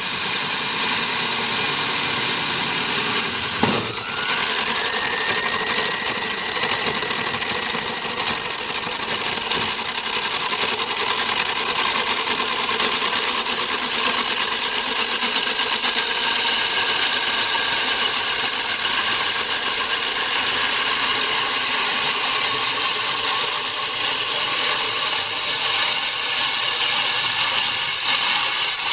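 Cuttronix CM-10S3 core drill's 3 kW single-phase electric motor running a 200 mm diamond core bit. About four seconds in there is a brief knock and the motor's whine climbs in pitch and then holds steady, the sign of the load coming off as the bit finishes the cut; it keeps running unloaded while the bit is wound back out.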